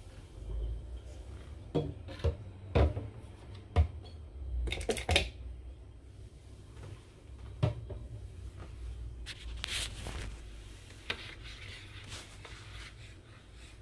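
Scattered light knocks and clatter of household items handled on a kitchen counter, over a low handling rumble, with a rubbing hiss about ten seconds in.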